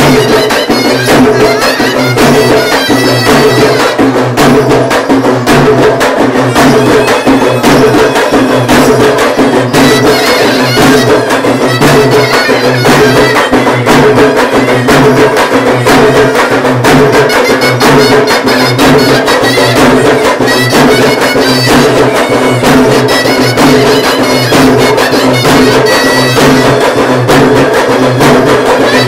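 Loud traditional Tamil festival music for a goddess dance: a reed wind instrument plays a sustained melody over fast, steady drumming.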